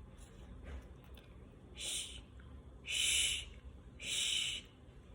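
A person hissing an unvoiced fricative consonant on its own, three times, each lasting about half a second, as a pronunciation demonstration.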